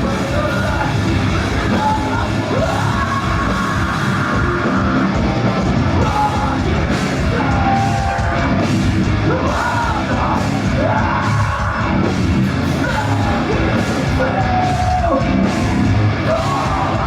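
A heavy rock band playing live, loud and dense, with a vocalist yelling and singing over driving drums and distorted guitars.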